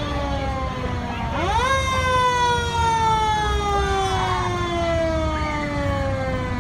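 A fire truck siren sounding. It winds up sharply in pitch about a second in, then slowly falls away, over a steady low rumble.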